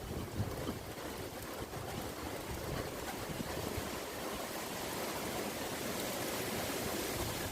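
Strong gusty wind, a steady rushing noise with irregular low rumbling buffets on the microphone.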